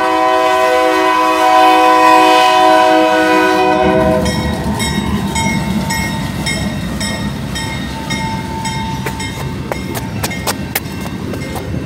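Union Pacific locomotive's air horn sounding one long, loud chord that cuts off about four seconds in. Then the train rolls past with a steady rumble, and a few sharp wheel clanks on the rails near the end.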